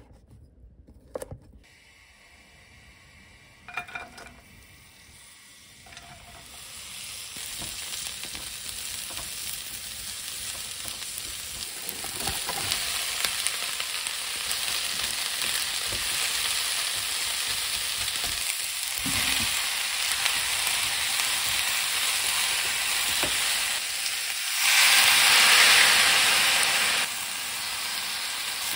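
A few knife strokes on a cutting board, then vegetables sizzling as they are stir-fried in a hot pan, the frying growing louder from about six seconds in. Near the end comes a much louder hiss for about two seconds as water is added to the hot pan.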